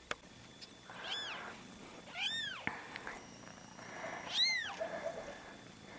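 Newborn kitten mewing: three short, high-pitched cries that rise and fall in pitch, a second or two apart, the last the loudest. A brief sharp click sounds just at the start.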